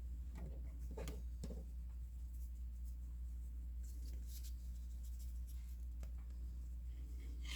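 Faint rustling and light handling clicks as cross stitch kit threads and packaging are moved about by hand. A steady low hum runs underneath.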